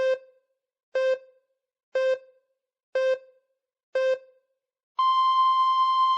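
Electronic beep tones in the pattern of a time signal: five short beeps one second apart, then a long, higher beep about an octave up that starts about five seconds in and holds for over a second.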